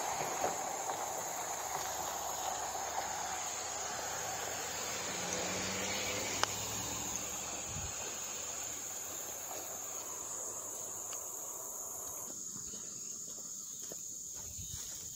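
Steady high-pitched drone of insects chirring, over a broad hiss that drops away about twelve seconds in, with one sharp click a little after six seconds.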